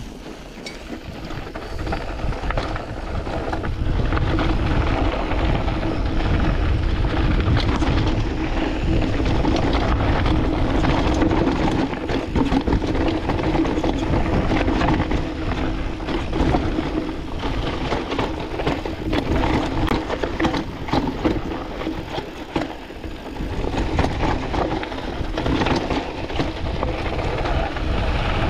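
Canyon Spectral AL 6.0 full-suspension mountain bike riding down a dusty, rocky trail, picked up by a chest-mounted camera. The tyres rumble and crunch over dirt and stones, with frequent clatters from the bike over bumps, and wind buffets the microphone.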